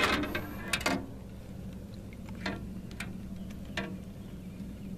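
A few scattered light clicks and knocks from handling on an aluminium fishing boat, over a steady low hum.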